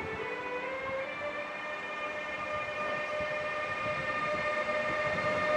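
Siemens Taurus (ÖBB Class 1116) electric locomotive's traction inverter singing as it accelerates: a chord of pitched notes that steps up in pitch near the start and then holds, over rumbling rail noise.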